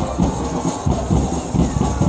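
Supporters' drums beating a steady rhythm, about three beats a second, over the hubbub of a stadium crowd.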